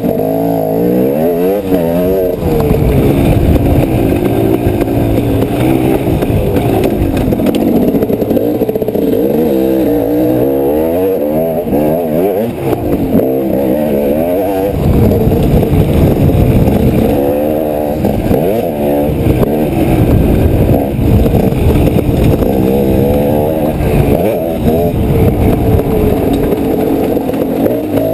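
Dirt bike engine heard from on the bike, revving up and down over and over as the rider opens and closes the throttle and shifts through the gears around the track.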